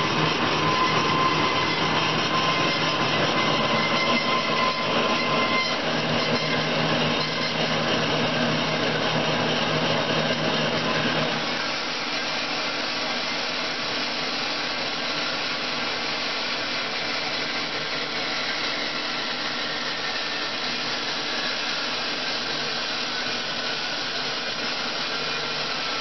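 Marvel Series 8 Mark II vertical bandsaw running, its blade cutting through a square metal tube under coolant. It makes a steady mechanical hiss and grind with a faint high whine, louder for about the first eleven seconds, then dropping to a quieter, even sound.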